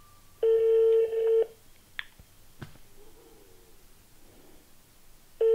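Ringback tone of an outgoing mobile phone call on speakerphone: two steady one-second tones about five seconds apart, the second starting near the end, while the call rings unanswered. A couple of faint clicks come in between.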